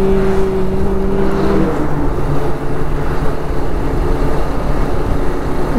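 Bajaj Pulsar RS200's single-cylinder engine running at a steady cruise, with road and wind noise heavy in the low end. A steady tone holds for the first second and a half or so, then stops.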